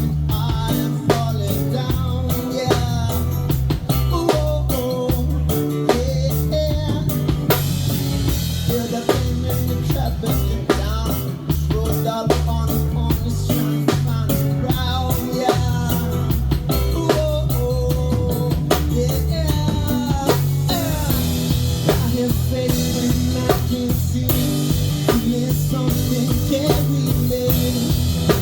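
Live band playing an instrumental passage: drum kit with rimshots, bass and guitar carrying the melody, with no vocals.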